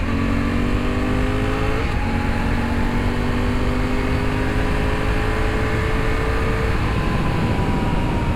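Honda Africa Twin's parallel-twin engine under hard acceleration. Its pitch climbs through the gears, with upshifts at the start and about two seconds in, then a long pull in one gear for several seconds. Heavy wind rush runs underneath.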